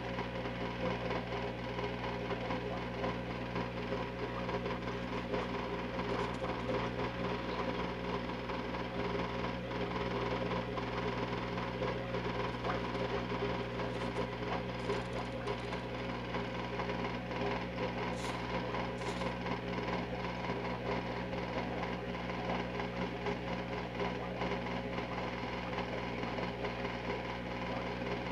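A motor running steadily with a constant-pitched mechanical hum.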